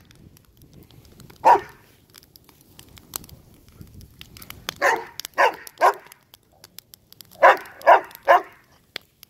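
A dog barking at a burning fire: one bark, then two quick runs of three sharp barks each.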